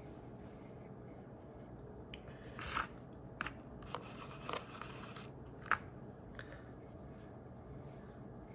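Faint rubbing with a few short scratchy strokes and light taps in the middle: stain being dabbed and rubbed onto the side of a tobacco pipe by hand.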